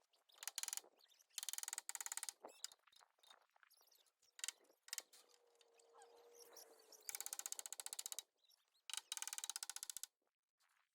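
Rapid, even mechanical clicking in about five short bursts, each lasting half a second to a second, with quiet gaps between them.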